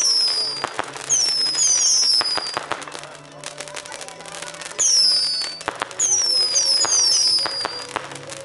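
Pyrotechnic fountains spun by a fire dancer, crackling and hissing as they throw sparks, with short high whistles that fall in pitch several times. Quieter music runs underneath.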